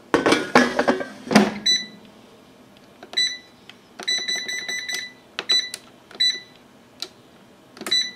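Knocks and clatter, then an air fryer's control panel beeping as its buttons are pressed to set the cook time: short, high single beeps, with a quick run of about eight beeps in a second where a button is held down.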